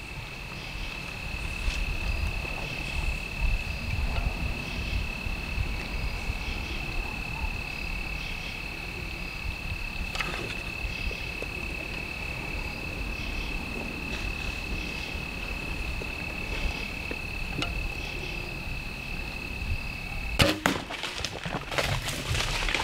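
An insect sings one steady high note over low wind rumble. About twenty seconds in, the note is broken off by the sharp crack of a bow shot hitting a deer, followed by the deer crashing away through dry leaves.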